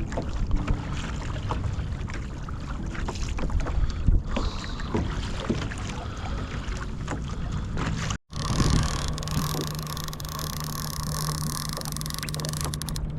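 Water sloshing against a kayak hull with scattered knocks and wind on the microphone. The sound cuts out for an instant about eight seconds in, and a steadier hum follows.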